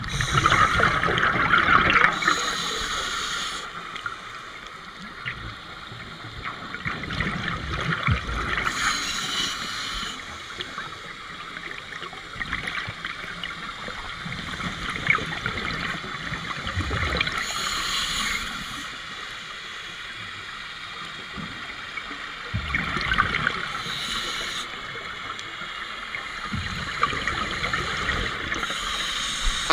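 Scuba regulator exhaust bubbles heard underwater: a burst of bubbling every several seconds as a diver breathes out, over a steady underwater water noise.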